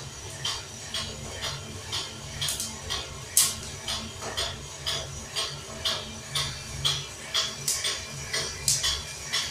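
Home-built coffee roaster's drum turning with a load of beans: a steady low motor hum under metallic clicking about twice a second, with a few sharper, louder clicks in between.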